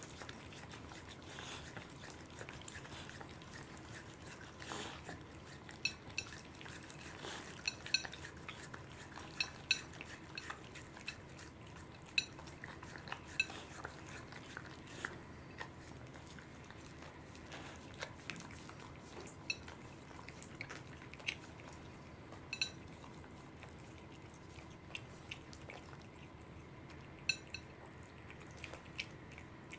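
Cat eating salmon pieces off a ceramic plate: irregular small clinks of teeth against the plate amid soft chewing.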